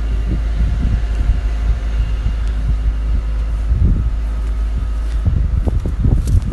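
Wind buffeting the microphone with irregular low rumbling thumps, over a faint steady machine hum.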